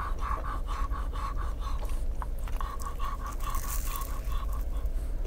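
French bulldog panting rapidly, about four breaths a second, breaking off briefly a couple of seconds in and then carrying on.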